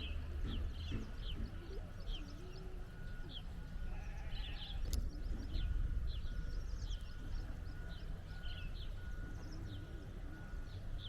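Outdoor ambience: birds chirping repeatedly over a steady low rumble, with a faint high beep repeating evenly from about three seconds in and a single sharp click midway.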